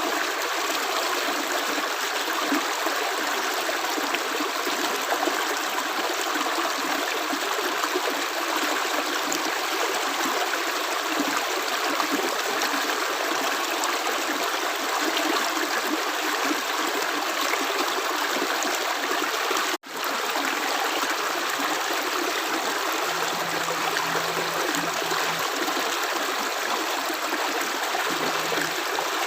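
Running water flowing steadily, an even rushing with no separate drips, broken by a momentary dropout about twenty seconds in.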